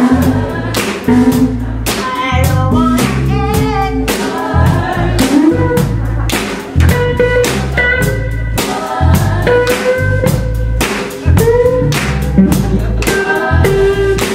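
Live rock band playing: drum kit with steady cymbal and drum hits, electric guitar and bass, with a group of voices singing over them.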